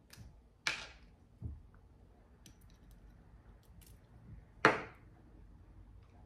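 Small Fenty perfume atomizer spritzed twice: short hisses that fade quickly, about four seconds apart, the second the louder. A light knock as the metal cap is set down on the wooden table between them.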